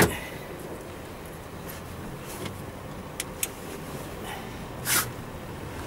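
Hard plastic knocks and clicks from the trim panels of a 2008 Toyota Prius cargo floor being handled. A sharp knock comes at the very start, two small clicks follow a little over three seconds in, and a short scrape comes about five seconds in.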